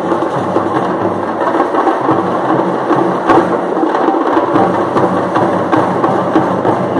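Parai frame drums beaten fast with sticks in a dense, unbroken stream of loud strokes, with one sharper hit about three seconds in.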